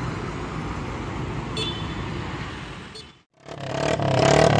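Steady street traffic noise for about three seconds; then, after a brief cut, a scooter engine running loud through an aftermarket open exhaust (knalpot brong), swelling up within a second and holding loud.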